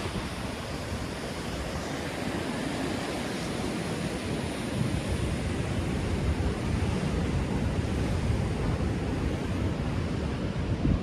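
Atlantic surf washing and breaking over rocks in a steady roar of noise, with wind buffeting the microphone.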